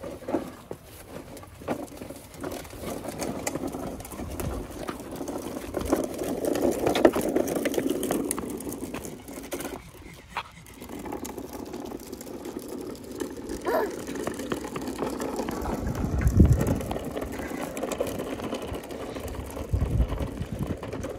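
Hard plastic wheels of a toddler's push-along ride-on toy tractor rolling and rattling over paving and asphalt, a continuous gritty clatter with many small clicks that swells and fades as it is pushed.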